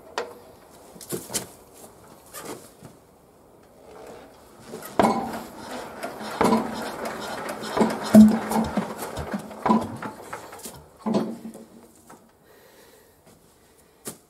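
Yanmar SS11C diesel tiller engine being hand-cranked. After a few clanks of the crank, it turns over with a busy clatter for about five seconds in the middle, then stops without catching: a failed start.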